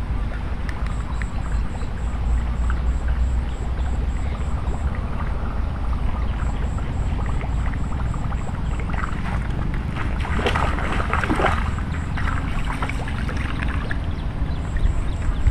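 Steady low rumble of wind on the microphone, with a high, fast ticking, about six ticks a second, that comes in runs of a few seconds and stops between them, and a brief rustling scrape about ten seconds in.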